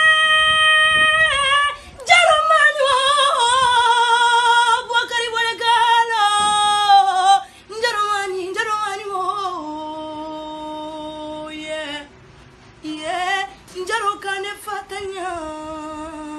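A woman singing unaccompanied in a high, strong voice, holding long notes and running through ornamented, wavering phrases. The phrases begin high and step down, with brief breaths about two seconds in and again near twelve seconds.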